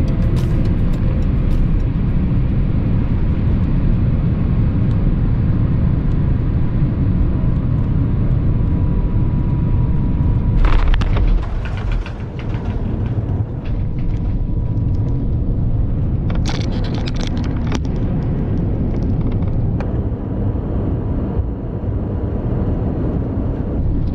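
Airbus A350-900 cabin noise during landing: a steady low rumble of engines and airflow. A brief loud noisy burst comes about eleven seconds in, and afterwards the rumble settles slightly lower.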